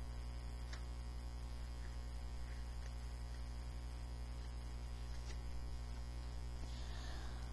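Steady low electrical mains hum, with a couple of faint ticks and a soft paper rustle of a book page being turned near the end.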